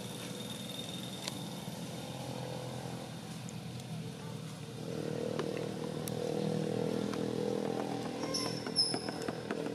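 A motor engine running steadily, getting louder from about halfway through, with a few light clicks and a short high chirp near the end.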